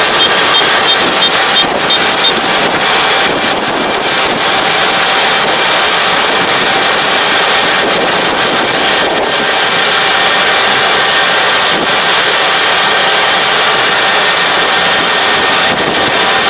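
Kubota DR575 five-row rice combine harvester running steadily while harvesting: its engine and cutting and threshing machinery make a continuous loud drone.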